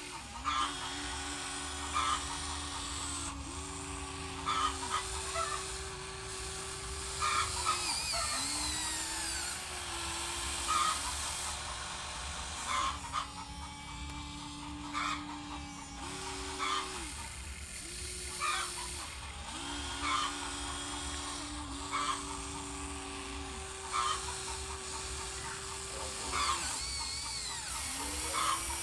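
Electric motors of a Huina 1594 RC excavator whining, starting and stopping and stepping up or down in pitch every few seconds as different arm, bucket and track functions are worked. Sharp clicks come every second or two over a low hum.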